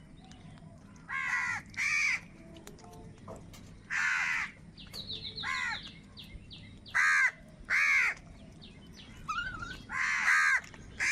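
Crows cawing: about eight loud, harsh caws spread over eleven seconds, some in quick pairs. A quick run of short, high chirps comes about five seconds in.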